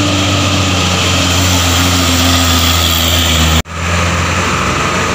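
Diesel engine of a Hino dump truck droning steadily under load as it climbs slowly round a steep bend. About three and a half seconds in the sound cuts out abruptly and heavy truck engines resume at once.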